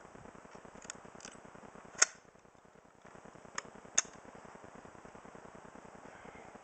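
A handful of sharp, very short clicks or cracks over a low hiss: five in all, the loudest about two seconds in and another about four seconds in.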